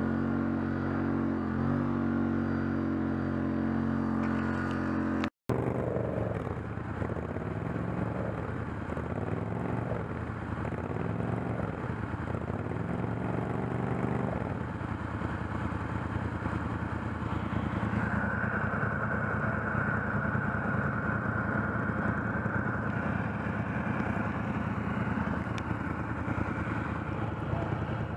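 ATV engine running at a steady pitch, then, after a brief cut, revving up and down in a series of rises and falls before settling into steadier running.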